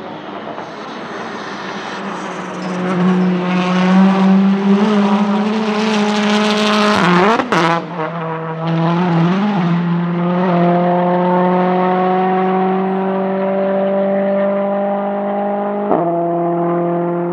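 Volvo S60 Polestar TC1 touring car with a turbocharged 1.6-litre four-cylinder engine, accelerating hard toward and past the listener. Its note rises as it closes, drops sharply as it passes about seven seconds in, then holds and slowly climbs again as it pulls away down the straight.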